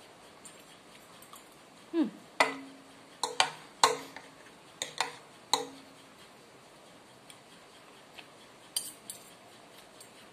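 Metal spoon and fork clinking and scraping against a ceramic bowl and plate while eating. There is a run of sharp clinks, some briefly ringing, from about two to six seconds in, then two more near the end.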